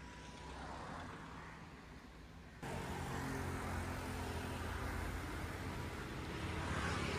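Road traffic with vehicle engines running: a low, steady rumble that jumps abruptly louder about two and a half seconds in.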